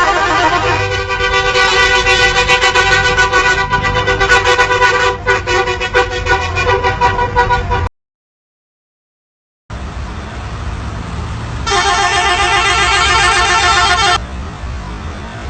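Bus telolet horns playing, several musical horn tones sounding together over engine and road noise. The sound cuts to dead silence about eight seconds in, then returns as traffic noise with another telolet horn blast of about two and a half seconds.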